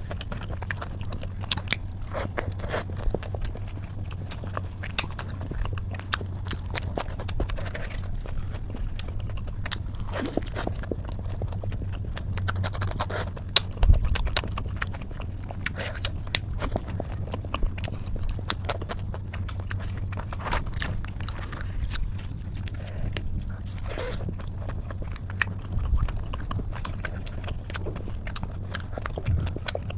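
Close-miked chewing and biting: wet mouth clicks and smacks of someone eating flatbread with a rich gravy, irregular throughout, over a low steady hum.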